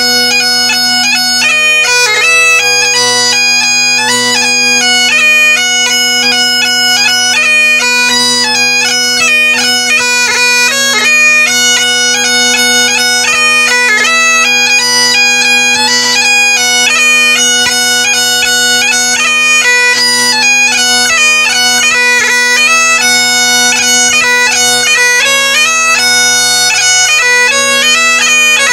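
Great Highland bagpipe playing a brisk traditional tune: the chanter melody moves quickly with short grace notes over the steady, unbroken hum of the drones.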